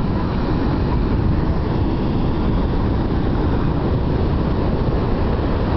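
Ocean surf breaking and washing up the beach, under a steady rush of wind on the microphone.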